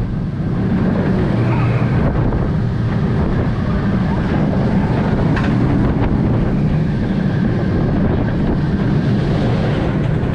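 Onboard a moving roller coaster: a steady rush of wind buffeting the microphone over the low rumble of the train running on the track.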